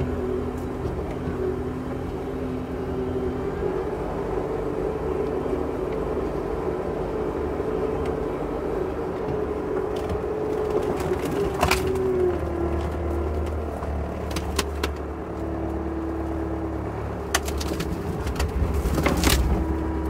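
A loader's engine running steadily. About twelve seconds in its note drops and it works harder with a deeper rumble, and a few sharp metal clanks follow in the second half.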